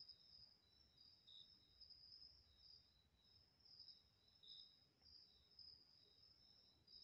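Faint night chorus of calling insects: two high-pitched trills at slightly different pitches, swelling and fading unevenly, over a faint low rumble.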